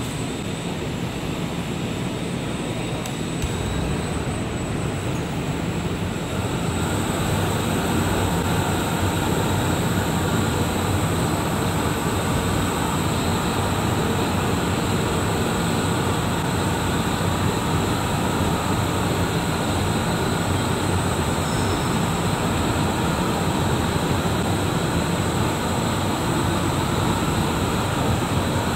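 CNC metal spinning machine running as it turns a metal bottle blank: a steady mechanical noise with thin, steady high whines. About six seconds in it grows louder and hissier and stays that way.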